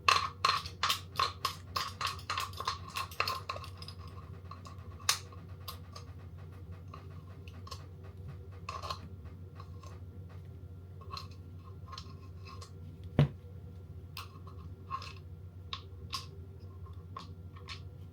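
Utensil scraping the last of the jerk marinade out of its container: a quick run of scrapes and taps for the first few seconds, then occasional softer taps and one sharper knock about 13 seconds in.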